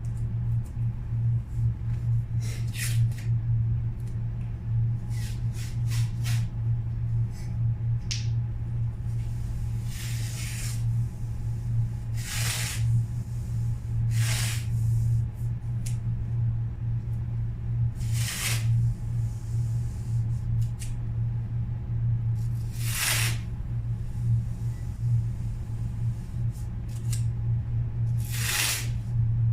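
Spray gun hissing in short bursts of one to two seconds, about six of them, over a steady low hum.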